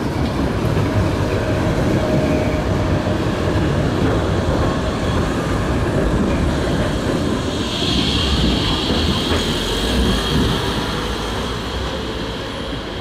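BVG AEG GT6N low-floor articulated tram passing close by, a steady rumble and rattle of wheels on rail. From about eight to eleven seconds a steady high-pitched wheel squeal rises over it as the tram runs round the curve.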